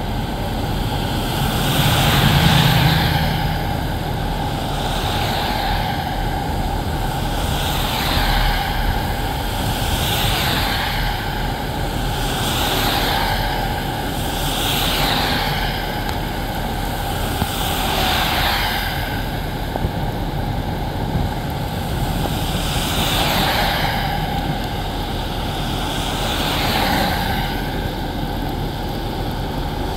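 Vehicle traffic in the rain: a steady hiss with a constant hum, and falling-pitch whooshes every two to four seconds, the loudest about two seconds in.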